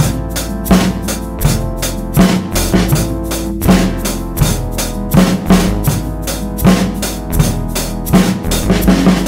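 Snare drum struck with sticks in a steady, even run of strokes, about five a second. It plays over music with sustained pitched notes and a heavier low beat recurring regularly.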